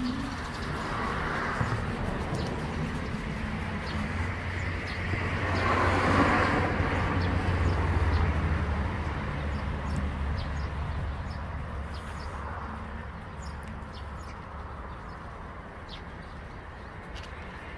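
Low traffic rumble, swelling as a vehicle passes about six seconds in and then fading, with small birds chirping now and then.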